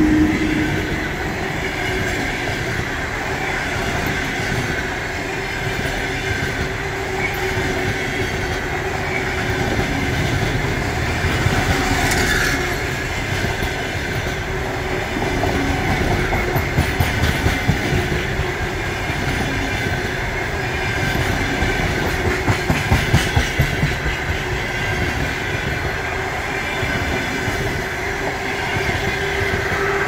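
Passenger train rolling past, a continuous rumble with a faint steady whine; twice in the second half the wheels clatter over rail joints in quick runs of clicks.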